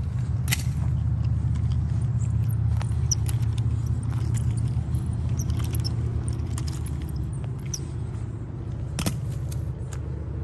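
Steady low rumbling noise on the microphone, with scattered light clicks and rattles from nunchaku being swung. The loudest click comes about nine seconds in.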